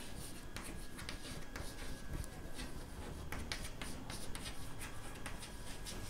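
Chalk writing on a chalkboard: a quick irregular series of faint scratching strokes and taps as a word is written out.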